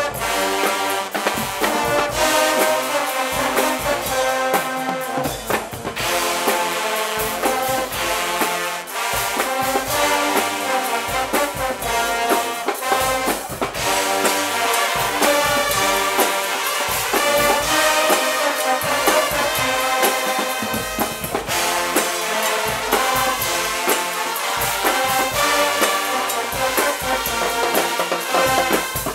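Guggenmusik carnival brass band playing: trumpets and trombones sounding together over a steady beat of drums.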